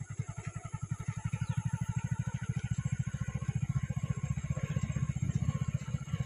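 A small engine chugging steadily at about a dozen beats a second.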